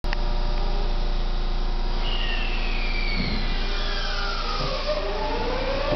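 Tokyu 9000 series electric train starting to pull away from the platform. A steady hum runs throughout. From about two seconds in, the traction inverter's whine starts with high tones sliding down, then lower tones climbing as the train gathers speed. There is a low thud about three seconds in.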